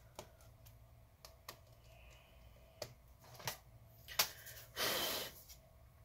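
Scattered light clicks and taps of hands handling the internal parts of an opened Dell Inspiron 15 5584 laptop during reassembly, with a brief rushing noise about five seconds in.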